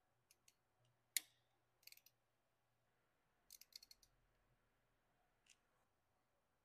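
Faint clicks of a small ratchet wrench undoing the distributor screws: a sharp metallic snap about a second in, then short runs of quick ratchet clicks, and a single click near the end.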